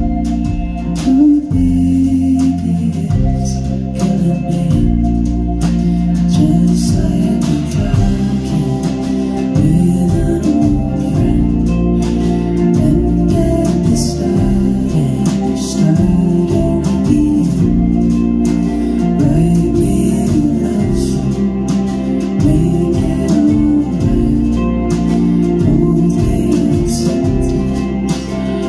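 A live rock band playing a song: electric guitars, a drum kit and a sustained electric organ, with a woman singing.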